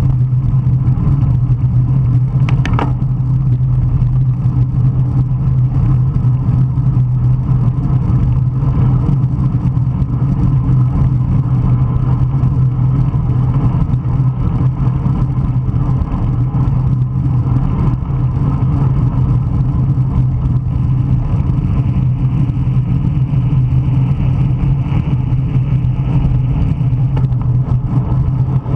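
Strong wind rushing over the microphone of a camera carried on a racing bicycle, a loud steady buffeting. A single brief click comes about three seconds in.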